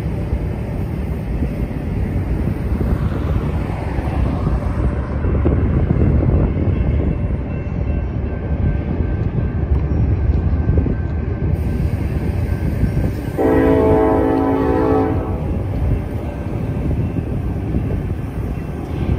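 Approaching BNSF freight train's diesel locomotive air horn sounding one blast, a little under two seconds long, about two-thirds of the way through. It sounds over a steady low rumble.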